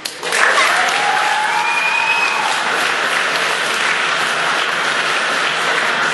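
Audience applauding, starting suddenly as the music stops and then holding steady, with one drawn-out shout over the clapping in the first two seconds.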